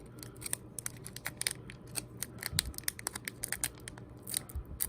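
A trading card pack's plastic wrapper being worked open by hand: an irregular run of small crinkles, clicks and scratches.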